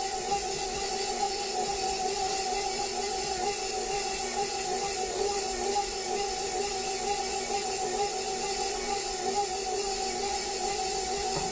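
Electric stand mixer running at a steady speed, its flat beater creaming soft cookie dough in a stainless steel bowl: an even motor hum that does not change.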